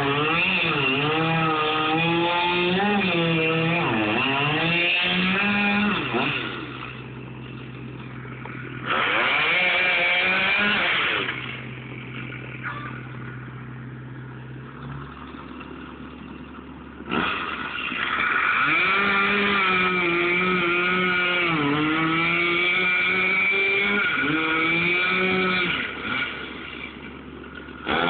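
Chainsaw cutting into felled tree logs: the engine runs at high revs, its pitch sagging and recovering as the chain bites. About six seconds in it drops to idle, revs briefly, idles again, then cuts steadily again for most of the rest, falling back to idle near the end.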